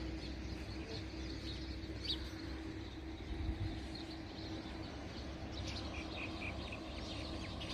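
Small birds chirping now and then, with a short run of quick repeated chirps near the end, over a low steady background rumble and a faint even hum.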